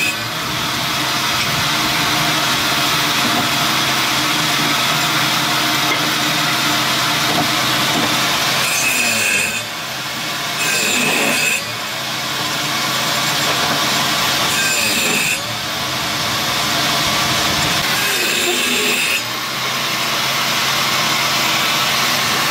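Steady, loud machine noise, a hiss over a low hum, that changes abruptly a few times.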